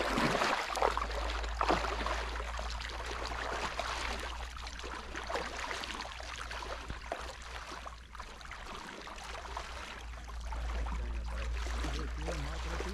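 River water running: a steady, noisy rush with a constant low rumble under it, and a few short knocks in the first couple of seconds.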